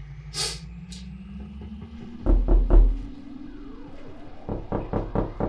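Heavy knocking: three blows about two seconds in, then a quicker run of knocks near the end, over synthesizer music with slowly rising tones.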